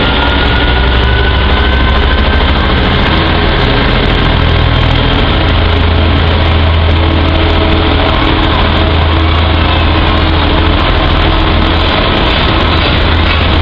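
Class 66 diesel-electric freight locomotive, with its EMD two-stroke V12 engine, passing close by with a steady heavy low drone, followed by its train of flat wagons rolling over the rails.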